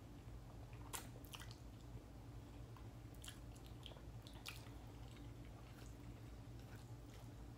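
Faint close-up chewing and slurping of spicy chicken noodles eaten with chopsticks, with a few short wet mouth clicks, over a steady low hum.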